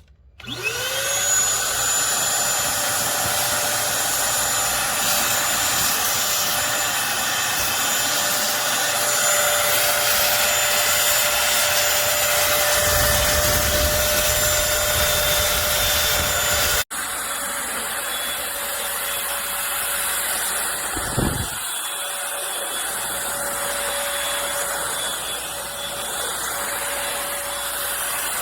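Eureka corded stick vacuum cleaner switched on, its motor spinning up with a rising whine and then running steadily. It cuts out for an instant about two-thirds of the way through, then runs on a little quieter.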